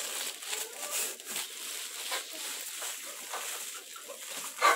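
Chickens clucking in the background, with a louder cluck near the end, over a light crackly rustle.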